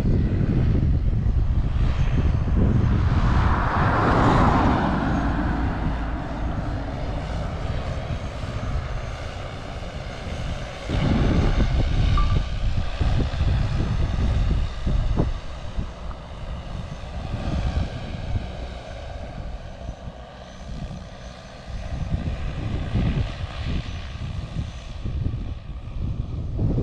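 DJI agricultural spray drone's rotors whining as it flies over the wheat spraying fungicide, swelling loudest about four seconds in as it passes close. Gusty wind buffets the microphone throughout.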